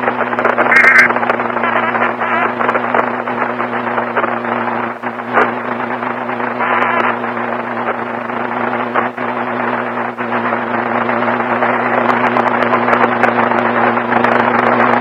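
Loud static over a steady low electrical hum, with scattered crackles and clicks that come thicker near the end: a failing emergency broadcast signal.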